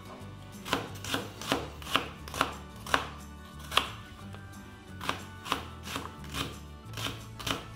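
Knife dicing an onion on a plastic cutting board: short, even knocks of the blade striking the board, about two a second, with a brief pause about four seconds in.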